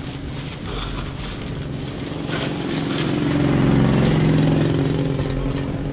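A motor vehicle's engine running close by, growing louder through the middle and easing off near the end, as if it passes or pulls up.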